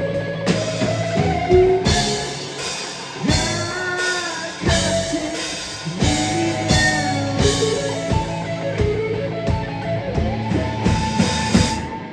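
Live rock band playing: electric guitar with bending lead lines over a steadily beating drum kit.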